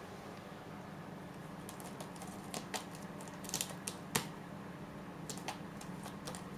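A Birman cat's claws scratching and tapping at a sisal scratching post and its carpeted base in play, in scattered sharp clicks and scrapes that bunch up from about two to five and a half seconds in, the sharpest a little past the middle.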